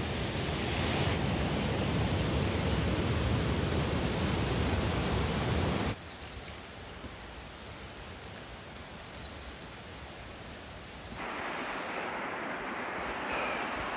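Steady rushing outdoor background noise that drops sharply about six seconds in and rises again about eleven seconds in, with a few faint high chirps in the quieter middle stretch.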